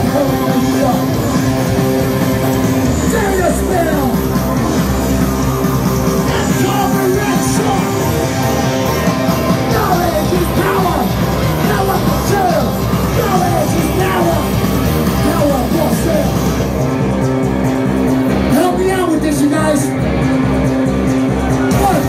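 Rock band playing live: electric guitars and drum kit, with a yelled, sung vocal line over them.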